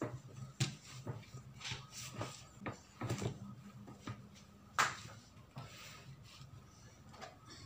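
Bread dough being kneaded by hand on a plastic mat: irregular soft knocks and thumps, one sharper knock about five seconds in.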